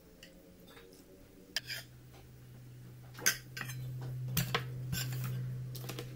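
Cutlery clinking against a plate while eating, a handful of sharp clinks scattered through, over a low steady hum that comes in about a second and a half in.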